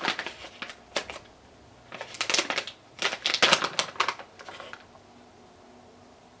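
Plastic packet of grated vegan cheese being handled and opened, crinkling and crackling in three short spells, the last the longest.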